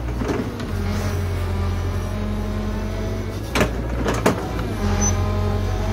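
Excavator's diesel engine running steadily under load while pulling tree stumps, with a few sharp knocks, the loudest about three and a half and four seconds in.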